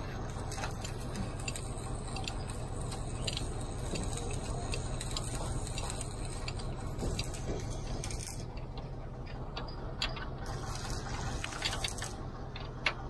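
Spanner working the mounting bolts of a water-tanker pump: irregular metal clicks and clinks of the tool on the bolts, with one sharper click near the end, over a steady low hum.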